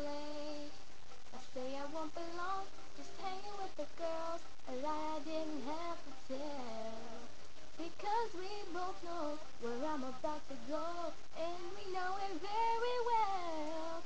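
A young female voice singing a slow melody alone, with long held notes and gliding pitch, rising to a higher phrase near the end.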